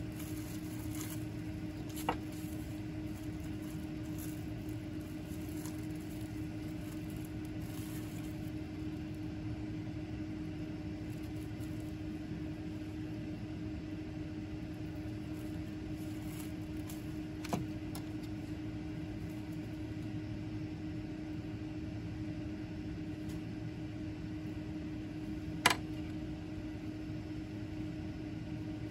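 Steady machine hum with a constant low tone, with three short sharp clicks spread across it.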